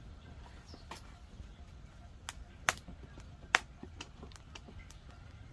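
Irregular small crackles and ticks over a low steady rumble, with two sharper pops a little after the middle: a wetted, clamped wooden door-frame timber being heated over a fire to bend it straight.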